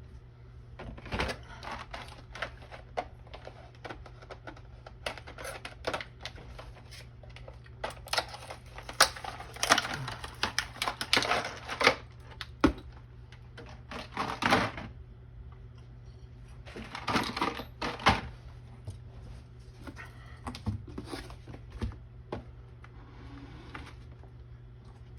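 Irregular clicks, taps and clatter of small hard parts being handled and fitted together on a workbench, in scattered clusters, over a steady low hum.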